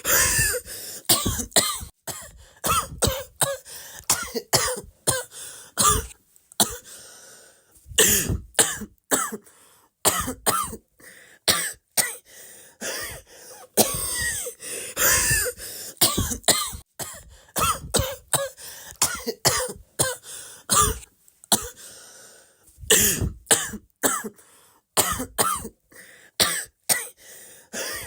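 A person coughing over and over, in rapid runs of short, sharp coughs separated by brief pauses.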